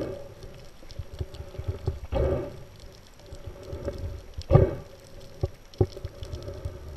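Underwater sound picked up by an action camera in its waterproof housing: muffled water noise that swells into a brief rush about every two and a half seconds, over a faint steady hum and a few small clicks.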